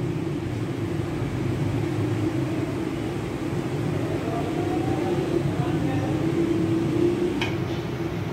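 A steady low mechanical hum, with a faint voice in the background about halfway through and one sharp click near the end.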